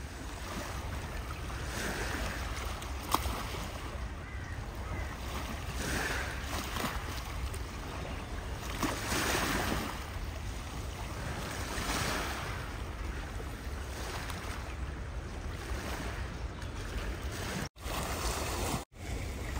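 Small waves lapping on a gravel shore in slow swells every few seconds, over a steady low rumble of wind on the microphone. The sound cuts out briefly twice near the end.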